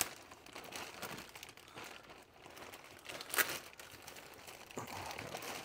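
Clear plastic bag crinkling as hands pull it open and handle the charger cable inside, with one sharper crackle about three and a half seconds in.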